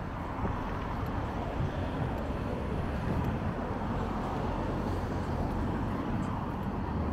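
Steady outdoor street noise, a low rumble of vehicle engines and traffic with no distinct events.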